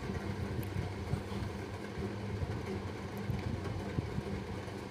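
Steady low mechanical hum with a rumble underneath and a few faint clicks.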